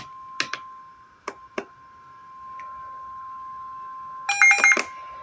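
Weather radio's steady 1050 Hz warning alarm tone, sounding ahead of a severe thunderstorm warning. A few sharp clicks come in the first two seconds, and a short, louder burst of buzzy electronic beeps comes about four seconds in.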